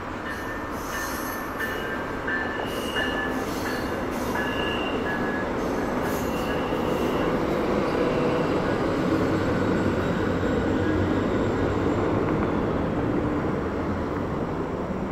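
VIA Rail passenger train passing over a rail overpass: a steady rumble of wheels on rails that grows louder midway. A high, broken wheel squeal comes and goes through the first half.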